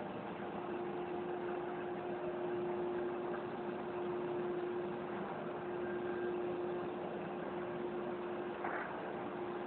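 CNC machine running: a steady hum over an even hiss. About nine seconds in the hum stops, together with a brief noise.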